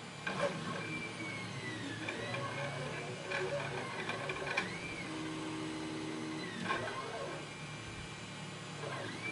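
Padlock being taken apart by hand: light metal clicks and scraping as it is opened up, a few sharper clicks spaced through the handling.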